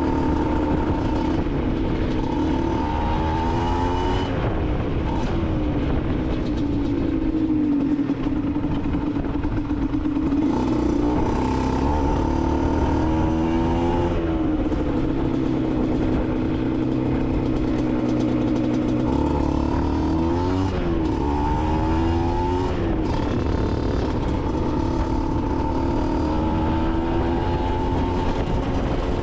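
Aprilia SX 125's single-cylinder two-stroke engine running through an Arrow exhaust, holding steady revs with the pitch swinging up and down three times.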